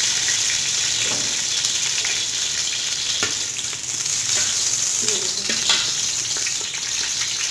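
Ghee melting and sizzling in a hot metal pot, a steady hiss of frying fat. A spoon stirring it knocks against the pot a few times.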